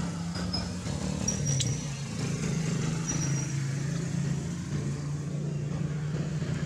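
A small engine running steadily, its low drone shifting slightly up and down in pitch. A few short, high chirps and a single sharp click come in the first few seconds.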